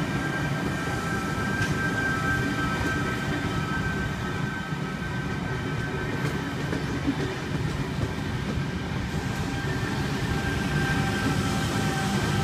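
V set double-deck electric intercity train passing through the station: a steady rumble of wheels on the rails, with a few faint steady high tones over it.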